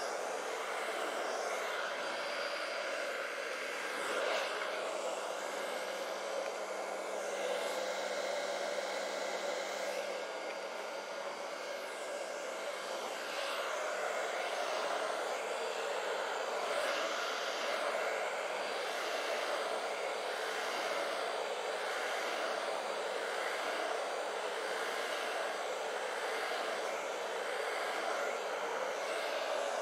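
Handheld hair dryer running steadily on its hot setting, a continuous rush of air over a faint low motor hum, swelling a little now and then.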